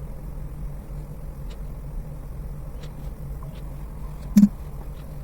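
Steady low hum and rumble, with a single sharp click about four and a half seconds in.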